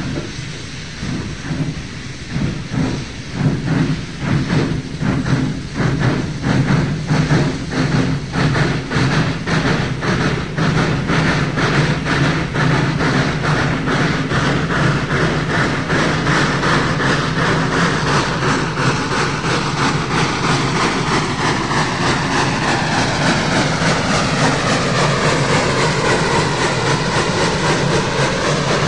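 South Australian Railways 400 class Beyer-Garratt, an articulated narrow-gauge steam locomotive, starting off with a heavy ore train: its exhaust beats come in pairs from its two engine units and quicken over the first fifteen seconds or so. The beats then merge into a steady rumble as the ore gondola cars roll by, with a squeal that dips and rises in pitch near the end.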